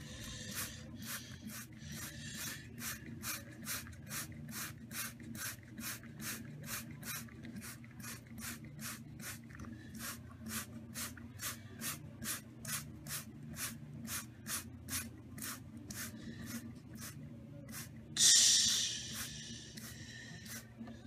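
Sound effects for a toy block-built car wash: a hiss pulsing about two and a half times a second, then a louder, longer hiss near the end.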